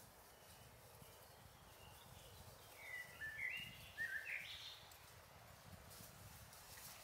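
Quiet woodland ambience with a faint low rumble; about three seconds in, a short run of high, quickly gliding chirps from an animal, five or six notes over about a second and a half.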